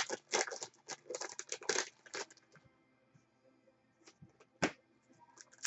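Trading-card pack being opened and its cards handled. A run of crinkles and clicks lasts about two seconds, then after a lull come a couple of sharp clicks near the end.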